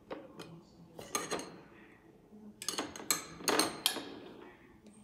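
Metal spoons clinking and scraping against a tall drinking glass as a thick cheesecake mass is scraped off into it: a series of light clinks, busiest from about two and a half seconds in.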